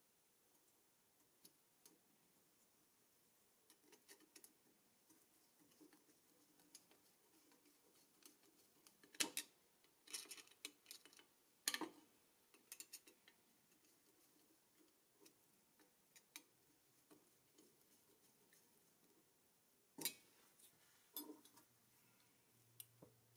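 Small painted steel and chrome parts of a Doepke Jaguar XK120 toy car being handled and screwed together: scattered light metallic clicks and taps of a screwdriver and parts, with three sharper clicks spread through.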